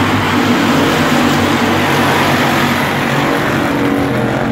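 A pack of dirt-track stock cars racing around the oval, their engines running loud and steady.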